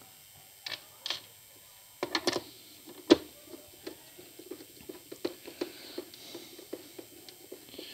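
Handling noise from a thermal mixer's hard plastic base being moved and set down on a workbench mat: scattered light clicks and knocks, with the sharpest knock about three seconds in.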